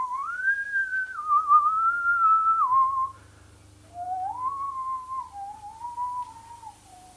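A person whistling a slow tune in two phrases of about three seconds each, with a short pause between; the second phrase sits lower and drifts downward near the end.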